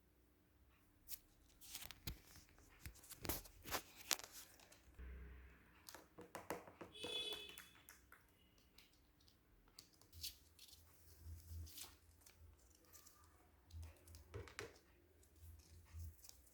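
A cockatiel tearing and crinkling paper with its beak: faint, irregular rips and crinkles mixed with small clicking taps.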